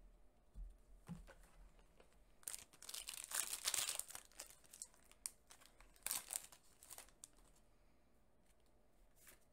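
Foil wrapper of a Yu-Gi-Oh! booster pack crinkling and tearing as it is ripped open by hand, loudest for about two seconds starting a couple of seconds in, with a second shorter crinkle a little later.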